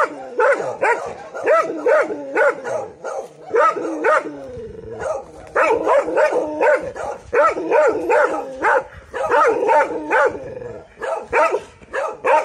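A six-month-old Taiwan dog (Formosan mountain dog) on a chain barking at a stranger in quick, repeated barks, about three a second, with a short break about four seconds in: alert, guard barking.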